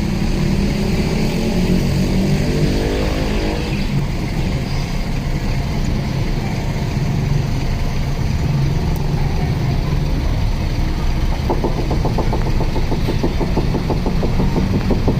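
Car engine running steadily with a low hum, its pitch rising briefly about two to four seconds in, and a fast, even ticking joining for the last few seconds.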